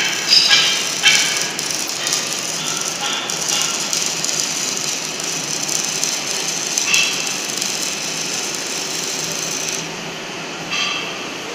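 Steady workshop machinery noise, with a few short sharp clatters in the first second and again around seven and eleven seconds in.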